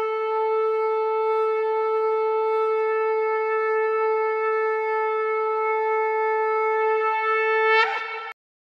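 A conch shell (shankh) blown in one long, steady note. Near the end the note wavers and breaks, then cuts off abruptly.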